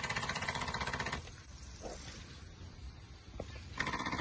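Home-built lightweight ploughing and seeding tractor's motor and drive running with a fast, rattling pulse. It stops about a second in and starts again near the end.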